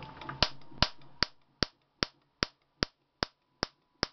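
High-voltage spark discharges from a car ignition coil driven by a homemade relay-switched capacitor-discharge ignition, with a microwave-oven high-voltage diode added on the output to strengthen the spark. The sparks snap sharply and loudly at an even rate of about two and a half a second, starting about half a second in, over a faint steady whine.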